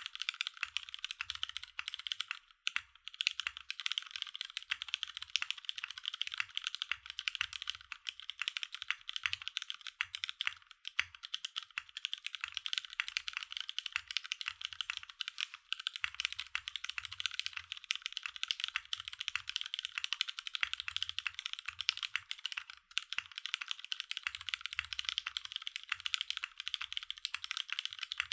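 Continuous fast typing on a KMG B60 mechanical keyboard with tactile Cherry MX Brown switches on an aluminium plate, top-mounted, with DCS keycaps: a dense run of key clacks. There are brief breaks about two and a half seconds in and again about twenty-three seconds in.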